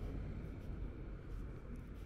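Low rumble of street traffic, fading slightly.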